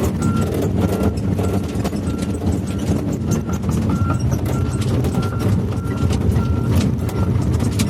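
Volvo EC210 excavator's diesel engine running steadily, with a short high-pitched warning beep repeating about every half second and frequent metallic clanks and rattles.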